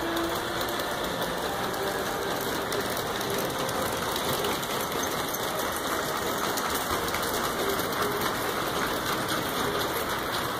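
Several LGB G-scale model trains running together: a steady whir of small electric motors and gearing, with fine rapid ticking of the wheels over the rails.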